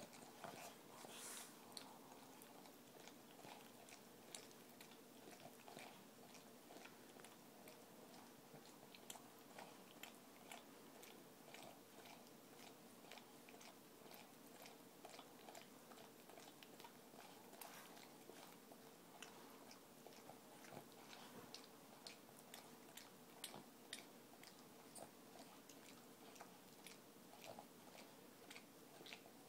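Faint, rapid wet smacking and clicking of a Boston terrier licking in and around another dog's mouth, going on without a break.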